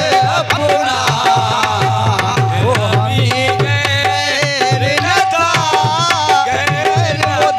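Qawwali music: a harmonium melody over a steady tabla rhythm.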